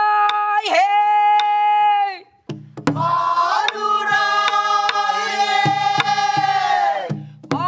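A woman sings a long held, wavering note of a Namdo folk song over light strokes on a buk barrel drum. About three seconds in, a group of voices sings the phrase back in unison, held for about four seconds, with the drum strokes going on.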